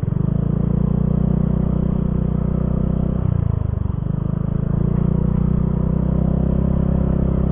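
Motorcycle engine running steadily while riding, its note dropping briefly a little past three seconds in and then picking back up.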